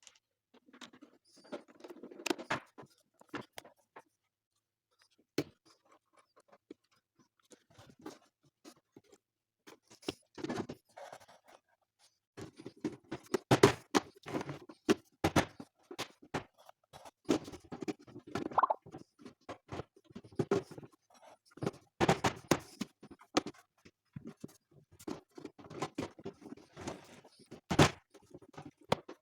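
Irregular clicks, knocks and rattles of parts being handled and fitted on a bread maker, with short scraping rustles between them; mostly sparse single clicks early on, busier and louder in the second half.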